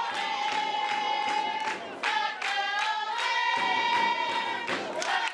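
Spectators chanting in long, high held notes, with clapping.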